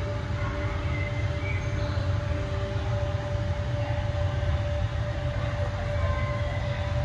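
Steady low machinery hum with a constant high tone held above it, unchanging throughout.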